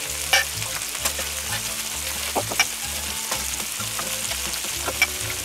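Burger patties, aubergine slices and onions sizzling on a hot round steel grill plate, with a few sharp clinks and scrapes of a metal spatula as onions are lifted off the plate into a steel bowl.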